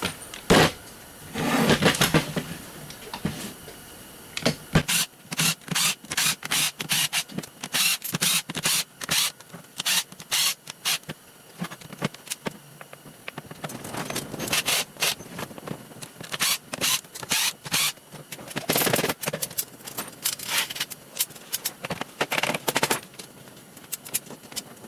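Clicks and knocks in irregular runs, with a few longer noisier stretches, as a broken Hart reciprocating saw is taken apart by hand.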